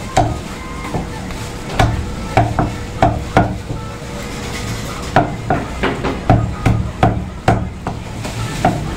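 Cleaver chopping chicken on a wooden chopping block: about a dozen sharp chops in two uneven runs, with a pause in the middle.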